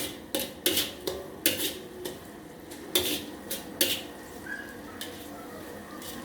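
Metal spatula clanking and scraping against a wok while fried rice is being stir-fried: about ten sharp strikes in the first four seconds, then quieter.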